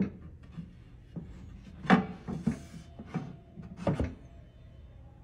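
Solid-wood cabinet being handled and turned on a wooden workbench: a series of wooden knocks and brief sliding noises. The loudest knocks come about two seconds in and again near four seconds.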